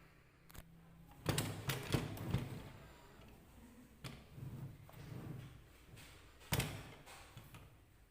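Handling sounds while unboxing a camera: a cluster of sharp knocks and clicks, then softer scuffing, and one more sharp knock.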